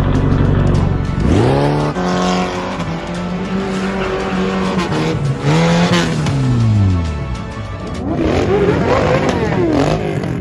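A car being drifted. Its engine revs up sharply about a second in, holds high, then drops back around five to seven seconds in. Near the end the tyres squeal with a wavering pitch.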